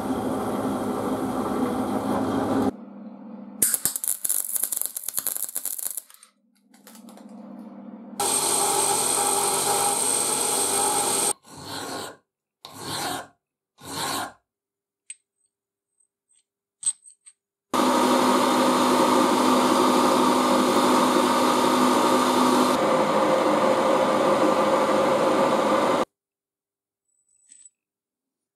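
Milling machine cutting a steel shaft with an end mill, then three short strokes of a hand file on the steel, then a motor-driven tool running steadily for about eight seconds.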